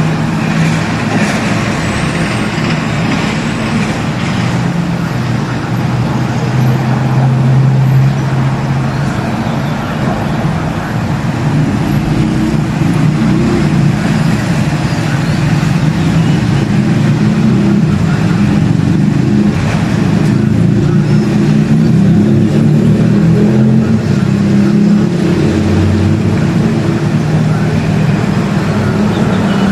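Steady, loud motor-vehicle noise, like engines running and traffic passing close by, with no distinct events.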